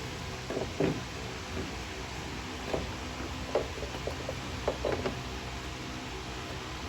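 Scattered light clicks and knocks of leaf-spring shackle bolts and plates being handled and pushed into the spring bushings, about eight in the first five seconds, over a steady low background hum.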